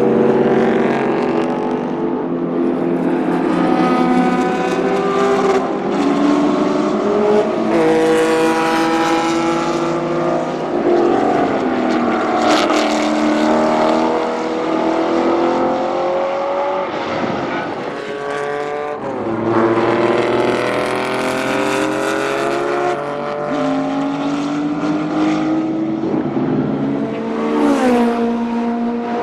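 Porsche 917 K race cars' air-cooled flat-12 engines at racing speed, accelerating and passing, the pitch climbing and dropping again with each gear change, at times more than one car heard at once.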